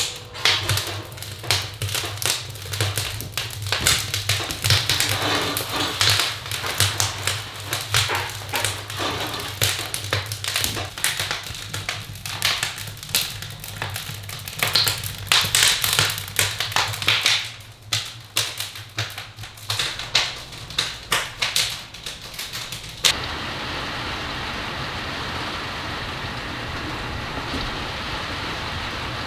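Wood fire crackling and popping in a sauna's wood stove, with dense irregular sharp snaps. For the last six seconds or so it gives way abruptly to a steady, even hiss.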